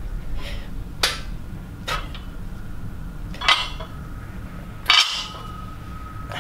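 Plate-loaded barbell clanking during bench press reps: four sharp metallic clanks a second or more apart, the last one ringing on briefly.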